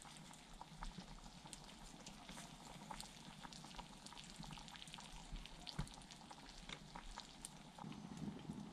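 Faint sizzling and crackling of food in a pan over a campfire, with scattered small pops and ticks. A low rumble comes up near the end.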